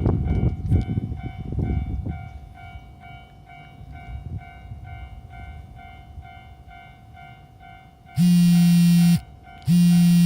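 Japanese railway level-crossing warning bell ringing in a steady, evenly repeating pattern, while the rumble of a passing train fades out over the first couple of seconds. Near the end two loud, long low tones, each about a second, cut in.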